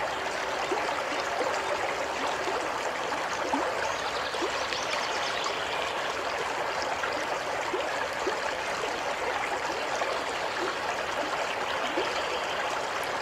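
Steady running water, an even rushing with small short rising blips of bubbling scattered through it.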